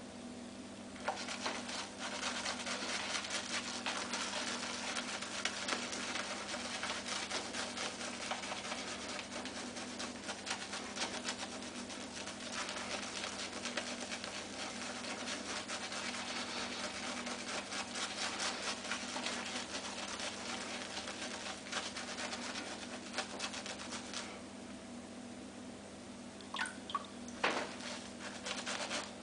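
Badger shaving brush (Simpson Berkeley) swirling shaving cream into a lather on the face: a fast wet scratchy brushing that stops about 24 seconds in. A few short squeaks and knocks follow near the end, over a steady low hum.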